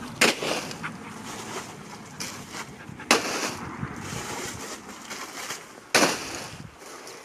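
Plastic bags of ice cubes crinkling and knocking as a dog handles them, with three sudden louder crackles: near the start, about three seconds in and about six seconds in.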